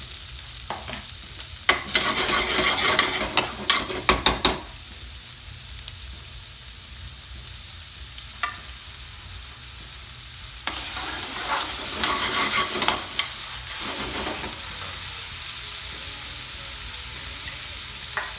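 Chopped onions frying in oil in an aluminium pan, sizzling steadily. A spoon stirs and scrapes the pan in two louder spells, about two seconds in and again about eleven seconds in.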